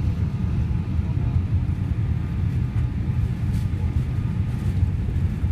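Steady low rumble of cabin noise inside a Boeing 787 airliner descending on approach to land.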